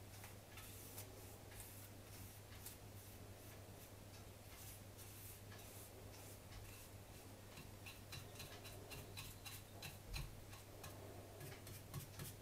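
Faint, irregular light ticks and clicks of a paintbrush working thin wood stain along a wooden rifle stock, a few a second, over a low steady hum.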